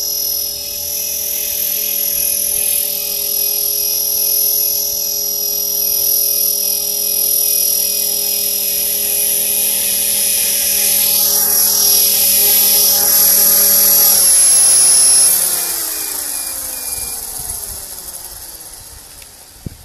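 Electric Blade 450 3D RC helicopter's brushless motor and rotors whining steadily at flying head speed. About fifteen seconds in, the motor is cut and the whine falls in pitch and fades as the rotors spool down after landing.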